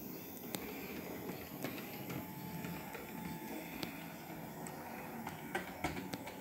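O gauge model diesel shunter running along the track: a steady whirr from its electric motor and gears, with scattered sharp clicks as its wheels cross rail joints and points, several close together near the end.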